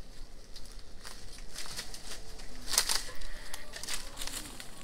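Dry leaf litter and twigs crunching and rustling underfoot as someone walks through brush: irregular crackles, loudest a little under three seconds in.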